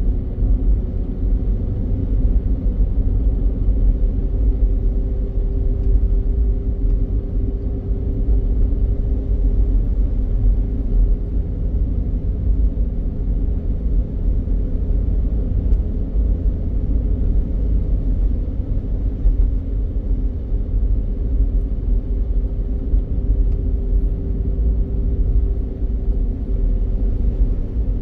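Car driving along a paved road: steady low rumble of tyre and engine noise, with a faint steady hum over it.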